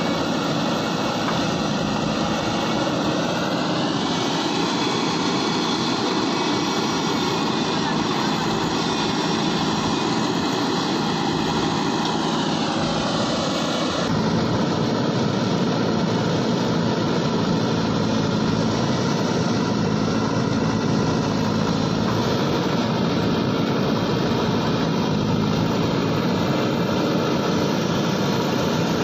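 JCB 3DX backhoe loader's engine running steadily under work, its pitch rising and falling a couple of times. The sound changes suddenly about halfway through.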